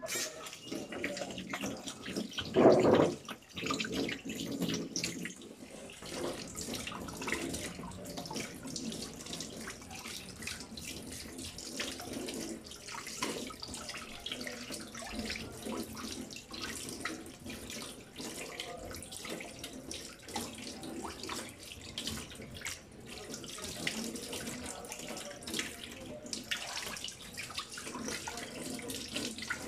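Tap water running into a sink with irregular splashing as hands scoop water to rinse soap lather off a face, with one louder burst about three seconds in.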